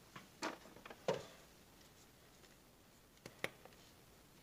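Sparse light clicks and taps of small parts and a grease container being picked up and handled by hand, with two clicks in quick succession near the end.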